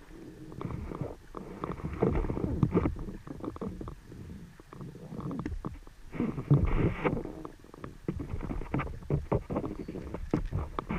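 Muffled underwater noise picked up through a camera's waterproof housing: an uneven low rumble with many irregular clicks and crackles, swelling a couple of times.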